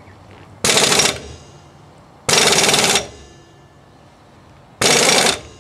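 Pneumatic impact wrench hammering in reverse on a large (1 5/16 in) hub nut, loosening it off a rear brake drum hub. Three rattling bursts, each about half a second to a second long, with pauses between them.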